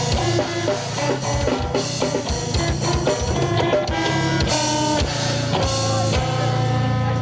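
Metal band playing a song: electric guitar riff over a drum kit with dense, rapid hits.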